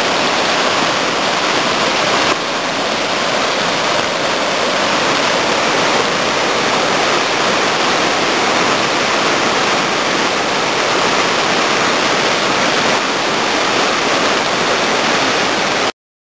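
Fast, muddy river water rushing over boulders in rapids, a loud steady rushing with no pauses; it cuts off abruptly just before the end.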